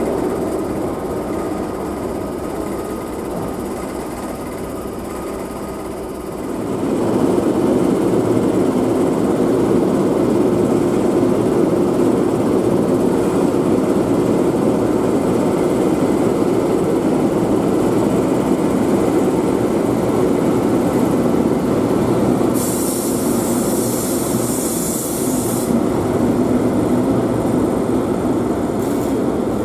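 Greater Anglia Class 90 electric locomotive and its passenger coaches running slowly along the track: a steady rumble of motors and wheels on rail that grows louder about six seconds in. A high hiss joins it for about three seconds near the end.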